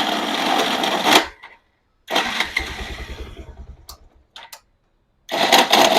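Bajaj Pulsar 220 electric starter pressed three times, each press giving a loud, harsh grinding rattle from the starter and magneto side, the second one longer and trailing off. The mechanic says this noise mostly comes from a faulty starter one-way clutch.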